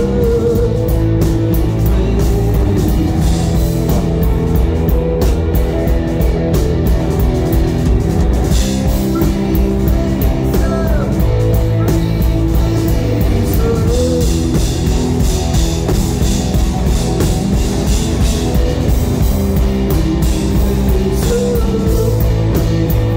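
Rock band playing live: electric guitars and a drum kit, loud and steady, with the drum hits thickest in the first several seconds.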